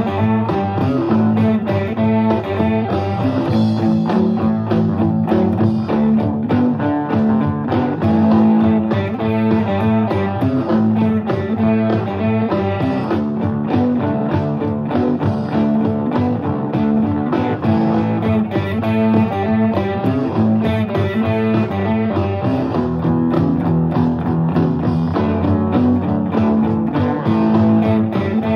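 Stratocaster-style electric guitar played through a small Fender combo amp, notes picked one after another without a break.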